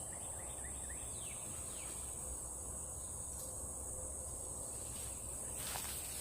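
A steady high-pitched insect drone, with a few short falling chirps in the first two seconds and a rustle near the end.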